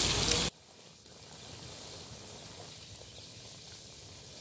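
Hiss of water spraying from a hose, cutting off suddenly about half a second in. Then faint outdoor ambience with a few soft ticks.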